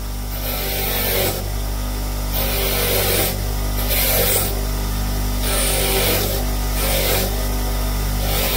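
Grinder motor running with a steady hum, while a small metal part of a spark tester is pressed against its soft cleaning wheel in repeated strokes, each giving a hissing scrub that comes and goes every second or two.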